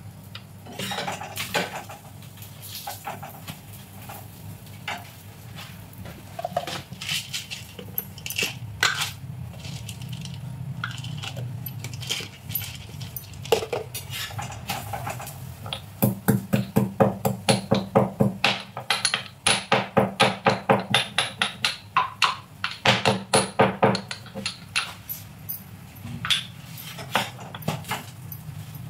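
Metal spatula clicking and scraping on a flat iron griddle (tawa) as leftover rotis are reheated in oil, with a fast run of even taps for several seconds past the middle.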